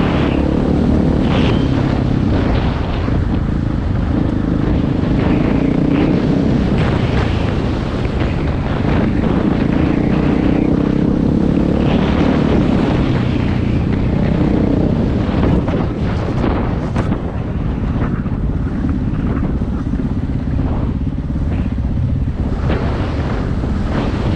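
KTM 500 EXC dirt bike's single-cylinder four-stroke engine running under load on rough trail, with scattered knocks and wind buffeting the microphone.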